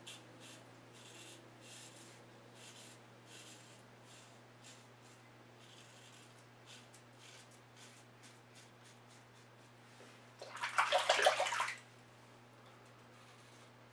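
Gillette New Improved safety razor scraping through lathered stubble in short, faint strokes, fading out over the first few seconds. About ten and a half seconds in, a brief gush of running water lasts about a second.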